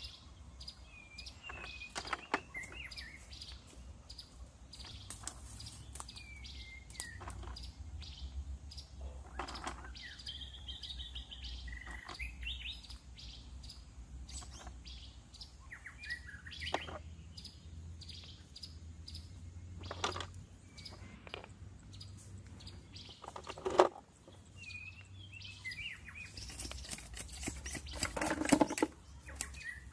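Small birds chirping over and over, with scattered clicks and knocks of stones being set down by hand. The loudest knock comes about four-fifths of the way through, and a cluster of knocks comes near the end.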